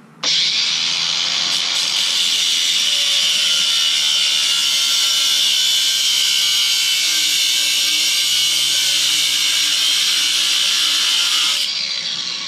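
A 4.5-inch angle grinder cutting through a metal V-band clamp held in a vise, the disc running against the metal in one long steady cut. It starts abruptly just after the beginning and eases off near the end as the grinder winds down.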